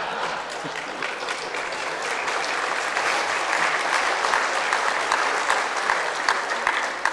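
Audience applauding, a dense patter of many hands clapping that starts to die away at the end.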